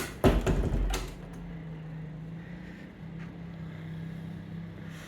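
A door being shut: a click, then a heavy thud with a short low rumble about a quarter second in. After it a steady low hum carries on.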